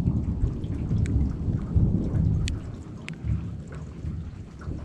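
Thunder rumbling low and continuously through a rainstorm, easing off about halfway through, with a few sharp raindrop ticks close by.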